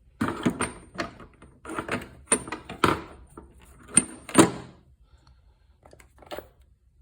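Metal impact sockets clattering and clinking as they are handled in a steel tool chest drawer, a quick run of sharp knocks with brief metallic rings for about five seconds, then a couple of fainter knocks.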